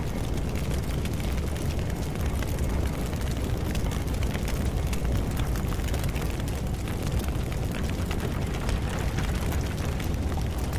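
Charcoal fire in a brick forge burning hard: a steady low rumble with fine crackling throughout.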